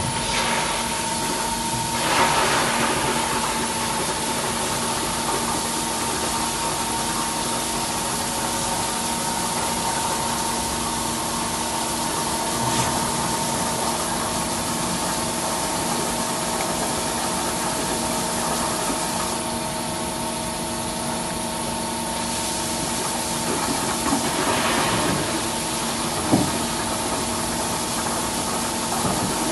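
Makino A51 horizontal machining centre running: a steady machine hum with a high whine over a hiss. There are brief louder swells of noise about two seconds in and near the end, and a sharp click shortly before the end.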